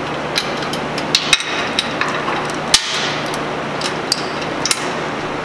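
Irregular metal clinks and knocks as a strut spring compressor and its safety chain are handled, with one sharp knock, the loudest, a little under three seconds in. A steady low hum runs underneath.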